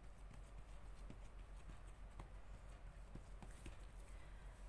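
Faint, scattered soft taps of hands patting and pressing a round of yeast dough flat on a plastic tray, over a steady low hum.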